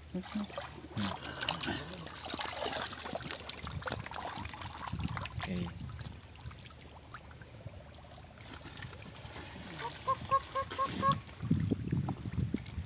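Shallow muddy water splashing and sloshing as a man wades and dips a woven bamboo basket through it. About ten seconds in, a short run of five quick, evenly spaced pitched calls.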